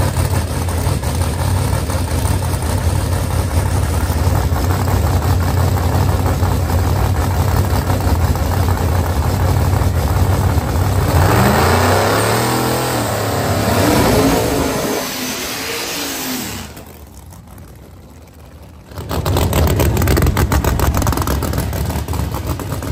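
Drag radial race cars' engines running loudly at the start line, then launching about eleven seconds in, their pitch climbing and dropping through the gear changes as they pull away and fade. Near the end a race car engine runs loudly up close.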